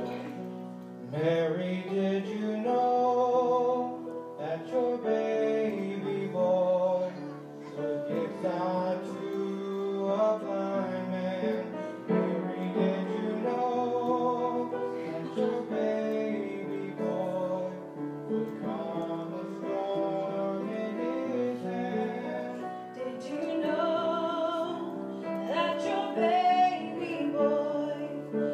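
A song: a woman's voice singing a slow melody with vibrato on long held notes, over instrumental accompaniment.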